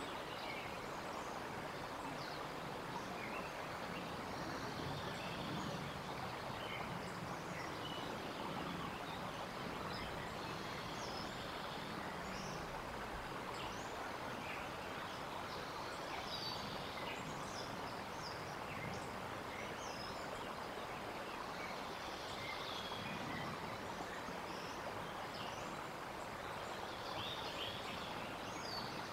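Steady outdoor background hiss with scattered short, faint chirps of small birds.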